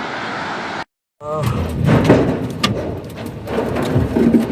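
Whirlwind winds roaring and buffeting the microphone, cut off by a brief silence about a second in. Then gusty wind again, with repeated sharp knocks and thuds and a short shout just after the break.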